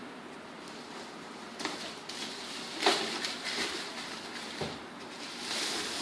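Box and packaging being handled: rustling with a few sharp clicks, the loudest about three seconds in, and a longer rustle near the end.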